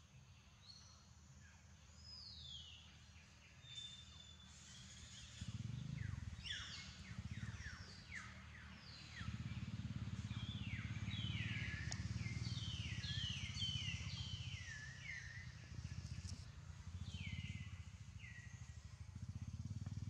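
Birds calling in forest: many short, high, whistled calls that sweep downward, repeated over and over. A low rumble sits underneath.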